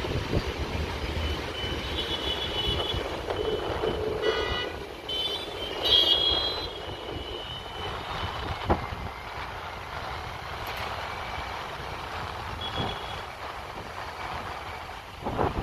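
Steady outdoor traffic rumble with a run of short high-pitched beeps and a brief horn-like tone in the first half.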